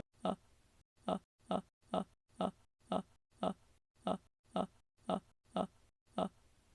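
A person's short, voiced catching breaths, about two a second, the repeated pre-sneeze gasps of a sneeze that is building but not yet coming.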